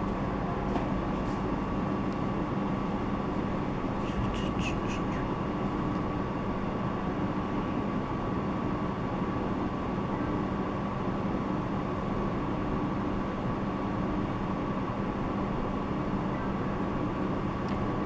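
Steady indoor background hum and hiss, with a faint constant tone running through it and a few faint clicks in the first few seconds.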